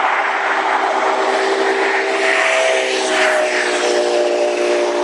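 A horn sounding a held chord of several steady tones. It comes in about a second and a half in over loud rushing noise.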